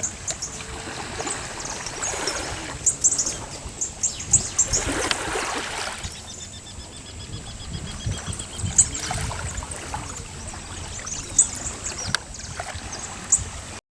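Birds chirping outdoors: many short, high calls, with a rapid trill of evenly spaced notes falling slightly in pitch about six seconds in. Under them runs a steady rushing noise, like running water or wind. The sound cuts off abruptly just before the end.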